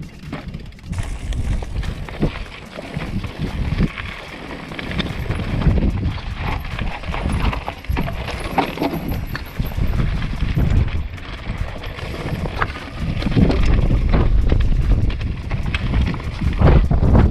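Mountain bike rolling over loose, rocky trail, its tyres and frame clattering with irregular knocks on the stones, while wind buffets the microphone with a low rumble that grows louder about two-thirds of the way in.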